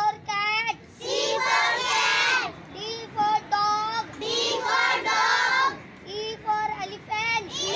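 A boy chants a rhyme in a sing-song voice, line by line. A group of children repeats each line after him in unison.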